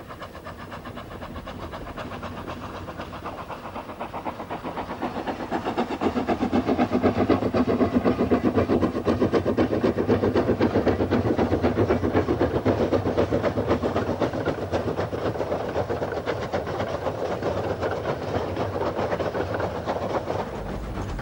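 Isle of Man Railway 3-foot-gauge steam locomotive working a train: rapid, even exhaust beats and the clatter of the running gear. The sound grows louder over the first six seconds and then slowly fades.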